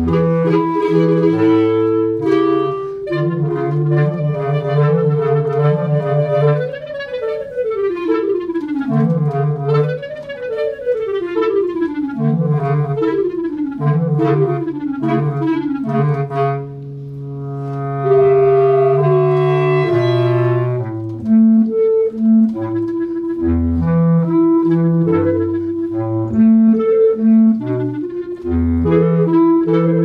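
Clarinet trio of two B-flat clarinets and a bass clarinet playing a contemporary piece. Pitches slide up and down in swooping glissandi over a held low note, then the low parts turn to short detached notes near the end.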